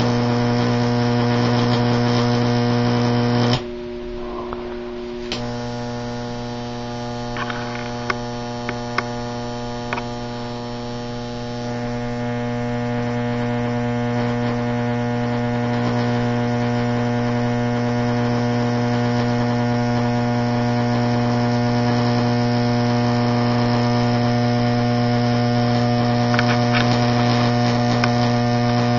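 High-voltage 15,000-volt AC arc from two parallel neon sign transformers, buzzing steadily across an adjustable rod spark gap as it is drawn out. The buzz cuts out suddenly about three and a half seconds in and returns under two seconds later, followed by a few sharp snaps.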